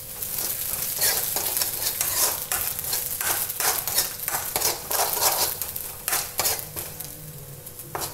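Whole coriander seeds and dried fenugreek leaves (kasuri methi) sizzling in a little hot oil in a kadhai, stirred with repeated scraping strokes against the metal pan; the stirring eases off near the end.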